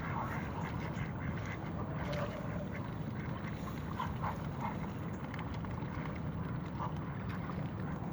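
Waterfowl giving short quacking calls every so often, over a steady low rumble.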